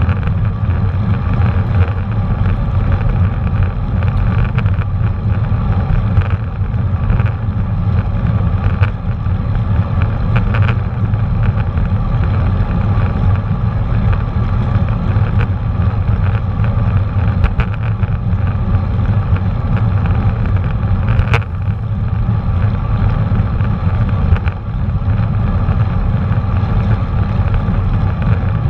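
Steady low rumble of wind buffeting a GoPro Hero 4 Black's microphone while riding a bicycle, mixed with tyre and road noise. A few sharp clicks from the bike, the sharpest about three-quarters of the way through.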